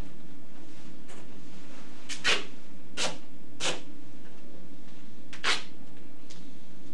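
Duct tape ripped off the roll in a handful of short strips, the loudest a little over two seconds in and again about five and a half seconds in, for taping the outer glove cuffs over the coverall sleeves.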